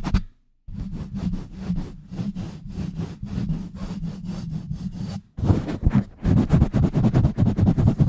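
Hands rapidly pumping, rubbing and scratching directly on a bare microphone (ASMR mic pumping), a fast run of muffled strokes at about eight a second. It stops dead for a moment about half a second in and again just after five seconds, then picks up louder.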